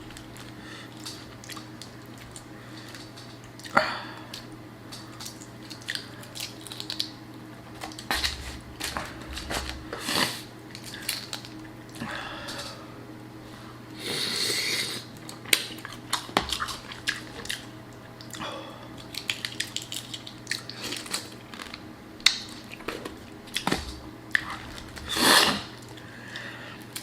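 Close-up eating sounds: chewing and lip smacks while eating Cajun fries, with small clicks and taps of handling the food and container, and a short rustle about halfway through.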